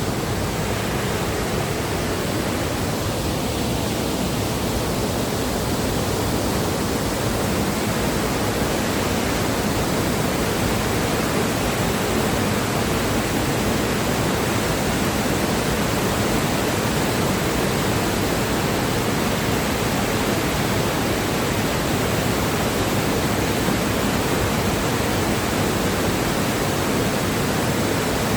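Powerful waterfall: a steady, loud rush of falling water.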